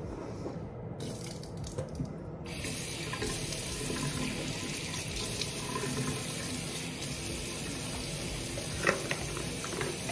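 Bathroom sink tap turned on about two and a half seconds in and left running, water splashing steadily into the basin while it is used to rinse the mouth. A few short knocks near the end.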